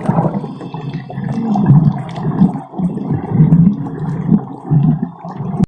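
Whale calls: low moaning swoops that rise and fall in pitch, one after another, cutting off suddenly at the end.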